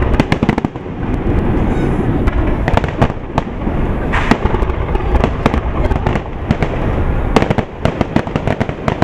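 Aerial fireworks shells bursting in quick, irregular succession: many sharp bangs and crackles over a continuous low rumble of booms.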